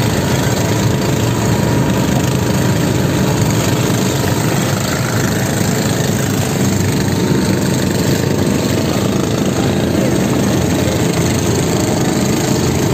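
Engine of a motorized outrigger boat (bangka) running steadily under way, mixed with the rush of water and spray along the hull.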